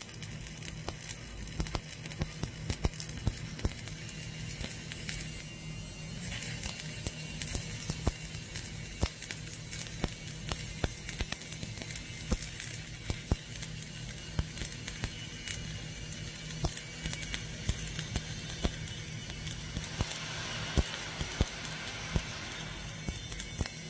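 Stick-welding arc of a 3.2 mm E7016 low-hydrogen electrode crackling steadily, with many sharp pops, over a low steady hum, while the first pass of a vertical fillet weld is laid.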